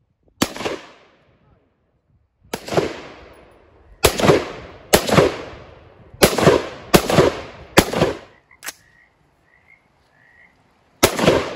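AR-15 rifle fired semi-automatically: nine single shots at an uneven pace, bunched closest together in the middle, with the eighth fainter. Each crack is followed by a short echoing tail.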